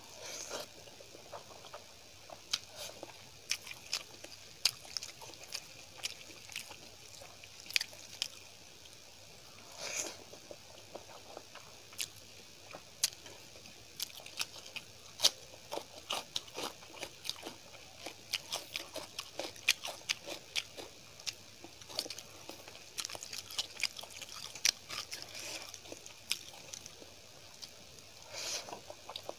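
A person eating rice and paneer masala curry by hand: chewing with many short, sharp, wet mouth clicks, and crunching as raw cucumber slices are bitten between mouthfuls.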